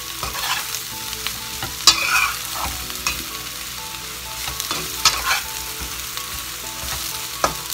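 Chunks of luffa sizzling in hot oil in a wok while being stir-fried with a metal spatula. The spatula scrapes and knocks against the pan, with a few sharper knocks, the loudest about two seconds in and about five seconds in.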